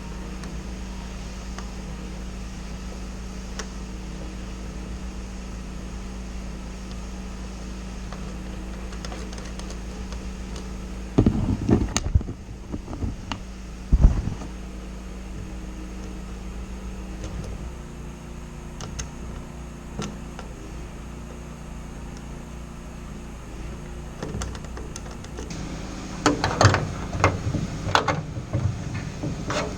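Steady mechanical hum, such as a workshop fan or machine, that changes tone a little past halfway. Over it come sharp metallic knocks about eleven to fourteen seconds in and a busier run of clattering knocks near the end, like tools and parts being handled during hands-on airframe assembly.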